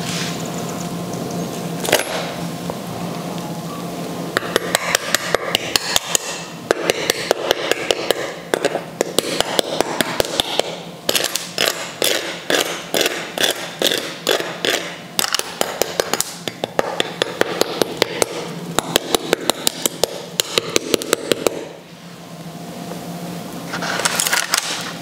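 A knife tapping and scraping over the crisp, blistered crackling of roast pork belly: quick, hard taps, several a second, starting a few seconds in and stopping shortly before the end. The sound of crackling that is crunchy right through.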